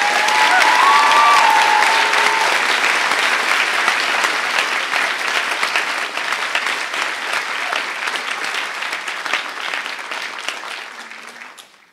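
Audience applauding, loudest in the first few seconds and gradually fading away near the end.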